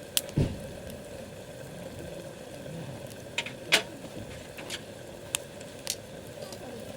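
Wood campfire crackling over a steady hiss, with a handful of sharp pops spread irregularly through it and one low knock just after the start.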